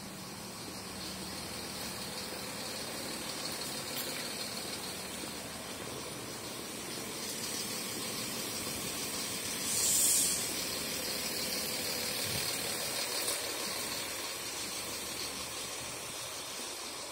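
City street ambience: steady traffic noise, with one short, loud hiss about ten seconds in.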